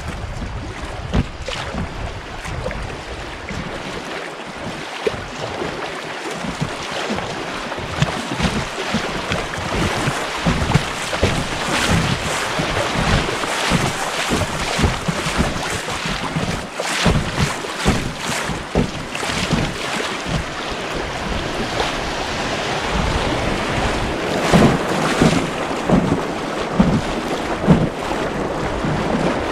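River water rushing and splashing against the bow of an inflatable kayak running a riffle, with wind buffeting the microphone. It grows louder and busier toward the end as the water gets rougher.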